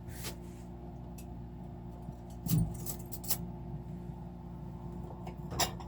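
Microwave oven running with a steady hum. A few light clinks and knocks come on top: one about a third of a second in, a cluster around the middle, and one near the end.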